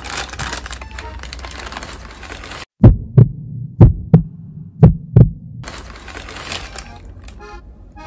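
A heartbeat sound effect: three deep lub-dub double thumps about a second apart. They start a little under three seconds in, right after the background sound cuts out.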